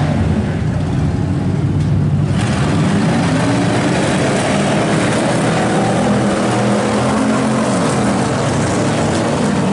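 Several race cars' engines running and revving together, their pitch rising and falling, over a steady hiss that gets louder about two seconds in.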